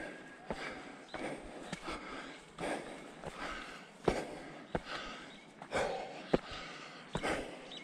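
A hiker puffing hard while climbing, quick breaths in and out a little over once a second, with footsteps on a rocky dirt trail.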